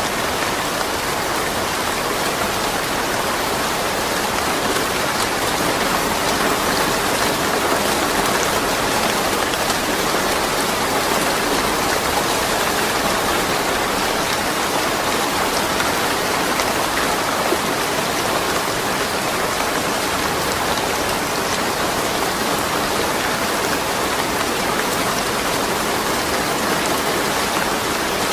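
Steady rain falling, an even dense hiss of drops on surfaces with no thunder.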